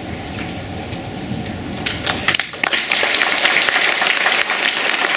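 Audience of schoolchildren applauding. The clapping starts about two seconds in and quickly grows loud, after a low room hum.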